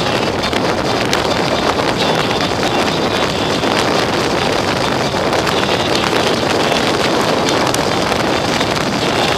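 Steady rush of wind buffeting the microphone of a motorcycle at road speed, over the even drone of its engine.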